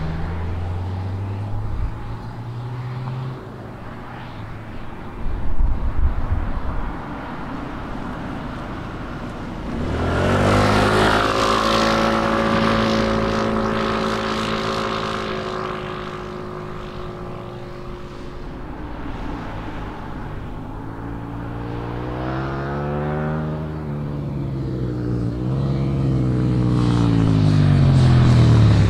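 Honda S2000's four-cylinder engine fading as the car drives away, followed by wind gusting on the microphone. About ten seconds in, a motorcycle engine comes in loud at a steady pitch and fades as it rides off. Near the end another motorcycle approaches, its revs rising and falling and then dropping as it slows for the bend.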